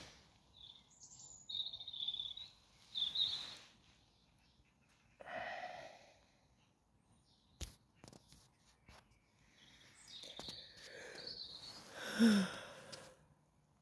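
Small birds chirping in the garden trees at dawn, short high calls in scattered bursts, with soft breaths close to the microphone and a single sharp click partway through.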